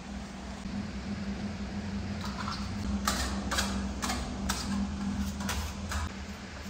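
Small steel hand trowels scraping across a wall as decorative finish is spread, about eight short strokes from about two seconds in. A steady low hum sits underneath.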